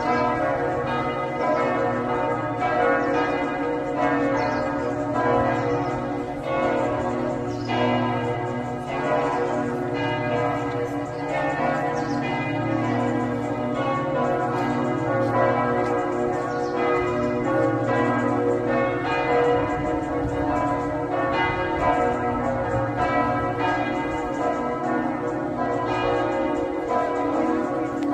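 Church bells of the Rosary Basilica at Lourdes ringing steadily. New strokes come about once a second over a continuous hum of many overlapping bell tones.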